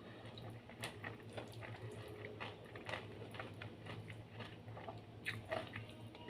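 A person chewing food close to the microphone, with irregular wet smacks and clicks of the mouth, over a steady low hum.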